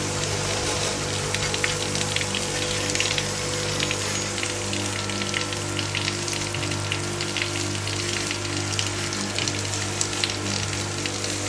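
Water spraying and spattering in a dense crackle of small drops, over a steady hum.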